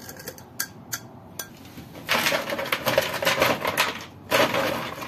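A glass tapping lightly against a ceramic bowl of coloured sugar, a few small clinks in the first second and a half. Then about two seconds of louder dense rustling noise, and a shorter burst of it near the end.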